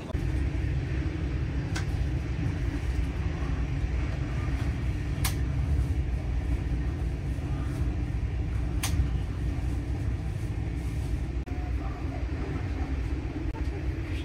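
Inside a passenger coach of a moving train: a steady low rumble of the running train, with three sharp clicks.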